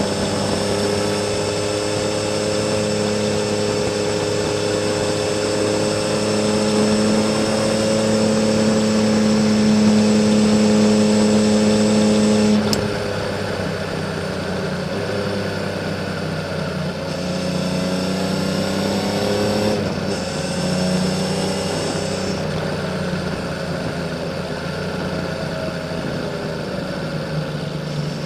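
Honda CBX 1000 six-cylinder engine through a Kerker 6-into-2 exhaust, pulling steadily on a climb. Its pitch and loudness build slowly, drop suddenly a little under halfway, swell again, then settle lower.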